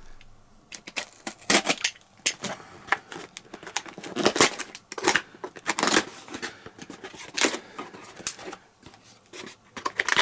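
A cardboard box and its plastic packaging being opened and handled: irregular crackling, rustling and tearing with sharp clicks.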